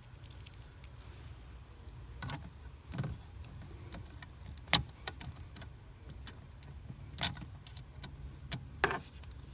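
A few sharp clicks and knocks, about five spread out, the loudest about halfway through, from hands working on fittings inside the car cabin, over a low steady hum.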